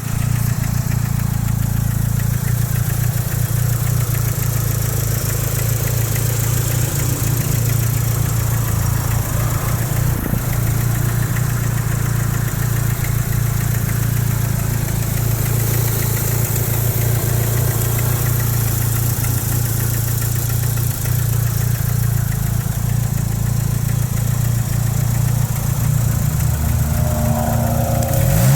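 Mitsubishi Lancer Evolution III's 4G63 turbocharged inline-four idling steadily with a knock. The owner wondered whether it was piston slap or rod knock; the cause turned out to be a cracked, partly melted No. 4 piston.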